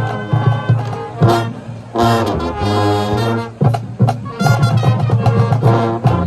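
High school marching band playing loud brass chords, punctuated by several sharp accented hits.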